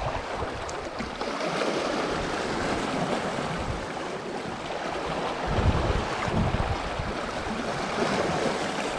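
Sea washing against the rocks below in a steady rush, with wind buffeting the microphone in low gusts, the strongest about six seconds in.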